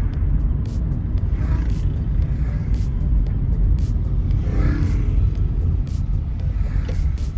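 Steady low road rumble of a car driving, with background music with a steady beat on top.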